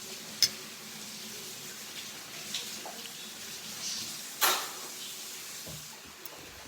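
Close-up eating sounds: a short sharp click about half a second in and a louder sharp sound with a brief tail about four and a half seconds in, with a few faint ticks between, over a faint steady hum.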